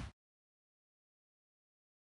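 Waves breaking with wind on the microphone cut off abruptly right at the start, then dead silence: the audio track has ended.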